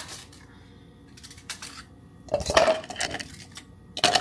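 Dishes clinking and clattering as a cup is handled. The loudest clatter comes about two and a half seconds in, and another sharp knock near the end.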